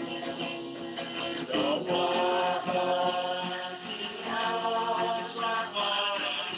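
Slow singing of a hymn with a plucked guitar accompaniment, the voice holding long notes.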